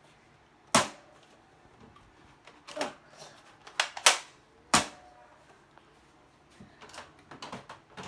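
Plastic mechanism of a Nerf Fortnite hand cannon blaster being cocked and worked: five sharp clacks in the first five seconds, then lighter clicks and rattles near the end.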